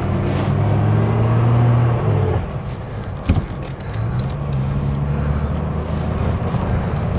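1954 Rover P4 90's 2.6-litre straight-six pulling away in first gear, heard from inside the cabin, with the straight-cut first gear whining. About two seconds in the engine eases off, a single clunk follows a second later, and it pulls steadily again: a gear change up out of first.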